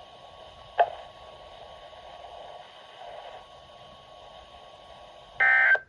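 Faint weather-radio hiss with a brief click about a second in, then near the end a loud half-second burst of EAS/SAME digital data tones: the end-of-message code that closes the Required Weekly Test.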